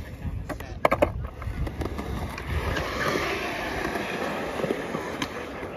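Skateboard wheels rolling on concrete, with a quick cluster of sharp clacks about a second in as the board is popped and lands, then a steady rolling rumble.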